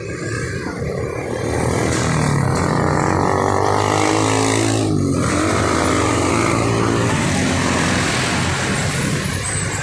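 A road vehicle's engine running close by. It gets louder about a second and a half in, its pitch bends around the middle as if it passes, and it eases off near the end.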